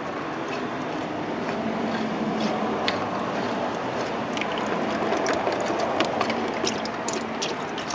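Engine oil trickling out of an oil-filter housing as its cap is unscrewed by hand: a steady splashing hiss that slowly grows louder, with scattered light clicks from the cap and hand.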